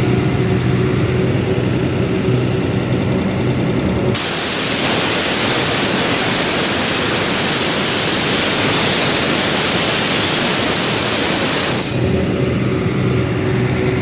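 Airman air compressor's diesel engine running steadily after starting. About four seconds in, a loud steady hiss starts up and covers the engine, then cuts off about eight seconds later.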